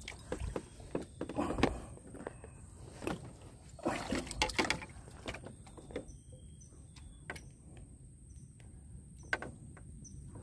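Knocks and rustling of handling on a bamboo raft while a freshly caught fish is unhooked, loudest in a couple of bursts in the first half. Faint short high chirps come in the quieter second half.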